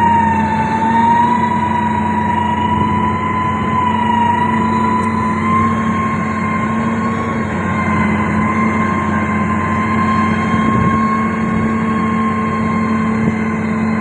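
SANY STG190C-8S motor grader's diesel engine running steadily under load as the blade pushes clay along the road, with a low hum and a sustained high whine that wavers slightly in pitch.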